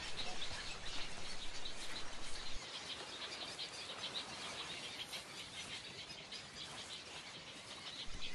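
Birds of a nesting egret and heron colony chirping in a fast, dense chatter of high ticks, a little quieter after about two and a half seconds.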